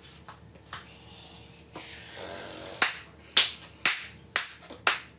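A hiss lasting about a second, then five sharp claps about half a second apart.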